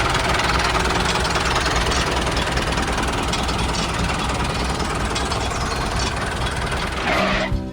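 A DIY mini combine harvester and thresher machine running, a steady, noisy mechanical drone that eases slightly toward the end.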